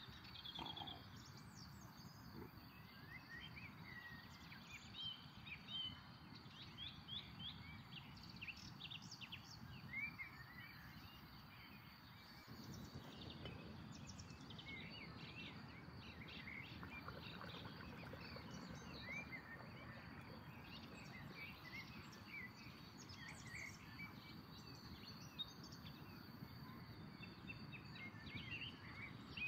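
Small birds chirping and trilling on and off over a faint steady outdoor background noise, which grows slightly louder about twelve seconds in.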